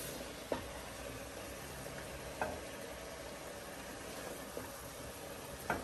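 Spinach greens simmering in a pot with a faint, steady sizzle. A wooden spatula knocks and scrapes against the pot a few times as the greens are lifted out.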